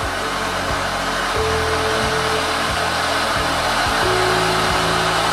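Homemade black-powder fireworks fountain (gerb) burning with a loud, steady rushing hiss, over background music with a steady beat.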